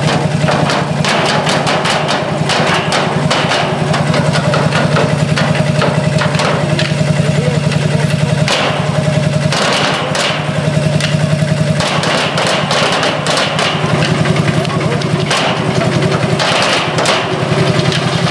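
Vintage stationary engine with a single vertical cylinder and twin flywheels running steadily, while steel oil drums are struck repeatedly with sticks.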